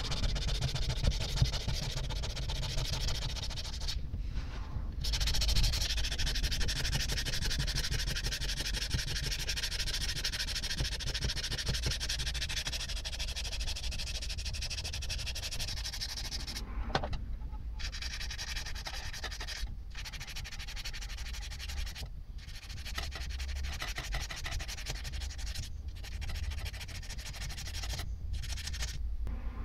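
Hand scrubbing rust off a vernier caliper with an abrasive, a steady scratchy rubbing that stops briefly about six times.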